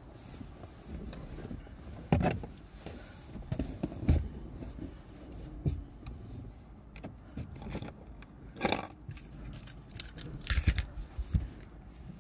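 Rustling of clothes and quilts with scattered knocks and bumps inside a car's cabin, from a person moving about in a cramped space. Sharp knocks come about two and four seconds in, and short bursts of rustling follow near the end.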